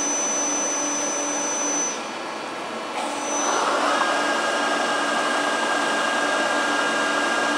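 FPT AREA M80 travelling column milling machine running its milling head at high spindle speed, with a steady mechanical whine. The sound drops off about two seconds in, then runs back up about a second later to a louder steady whine with a new, higher tone.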